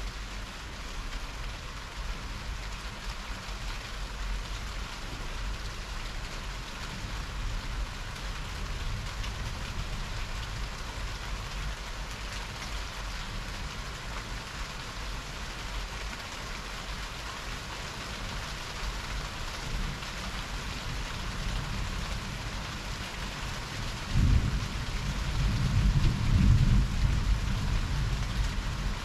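Heavy rain falling with a steady hiss. Near the end, thunder sets in suddenly with a loud low rumble that rolls on for several seconds.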